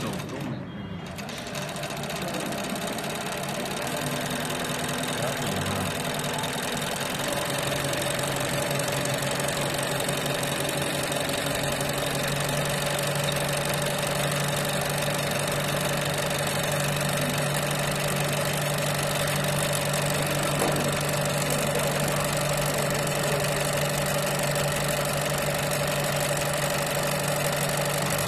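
Gtrobel GDB-360HTC industrial blindstitch sewing machine running steadily as it stitches a hem in coat fabric, with a brief dip near the start.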